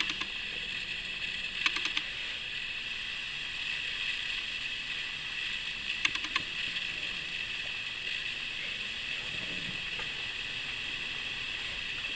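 Steady background hiss with a few small clicks in short clusters, about 2, 6 and 10 seconds in, from someone eating off-camera.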